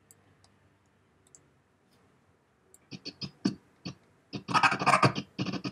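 A few faint mouse clicks, then, about three seconds in, playback of a boots footstep sound effect: separate sharp heel strikes that turn louder and come thicker near the end.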